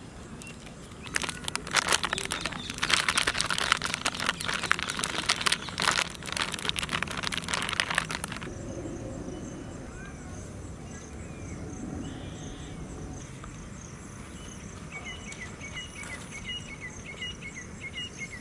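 All-purpose flour being poured from its packet into a steel bowl: a loud, crackly rustling hiss for about seven seconds that stops suddenly, then fainter sounds of a hand stirring the flour.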